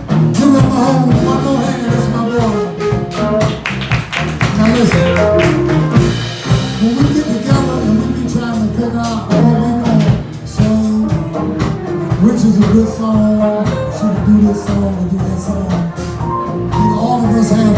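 Live soul band playing, with singing over the instruments.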